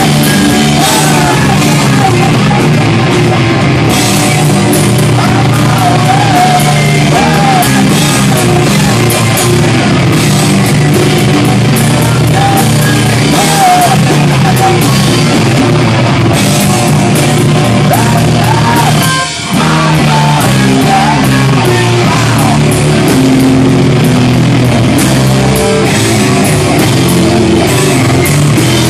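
Loud rock music with guitar and shouted singing. It drops out for a moment about two-thirds of the way through.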